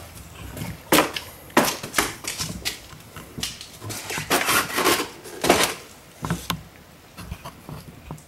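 Handling noise: a string of irregular clicks, knocks and short rustles, thinning out towards the end.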